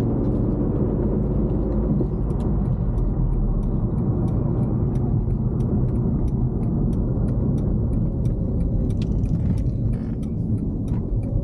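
Maserati Ghibli under way, heard from inside the cabin: steady engine and road rumble. From about two seconds in, a regular ticking runs alongside it, about two to three ticks a second.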